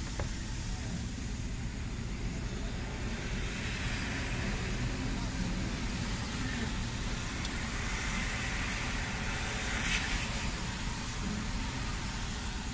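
Steady cabin noise of a stationary car: the engine idling as a low rumble under a hiss of light rain on the windshield and roof, with a light tap about ten seconds in.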